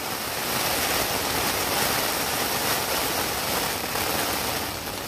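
Storm wind and rain beating on a Marmot backpacking tent, heard from inside as a steady rush of noise that swells slightly about a second in.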